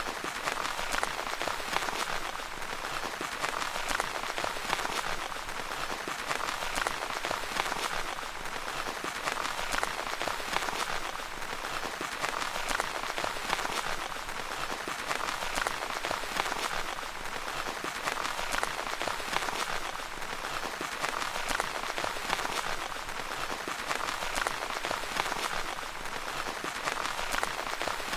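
Rain falling steadily on a tent, a dense, even patter of many drops on the fabric.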